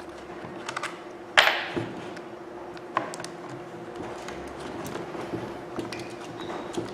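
Hand tools and small parts being handled during disassembly of a power tool: scattered light clicks and taps, with one sharp clatter that rings briefly about a second and a half in, over a steady faint hum.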